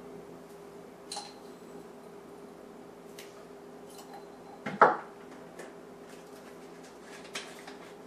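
Kitchen utensils and containers clinking and knocking on a countertop during recipe preparation, a few short knocks with one louder clatter about halfway through. A steady low hum runs underneath.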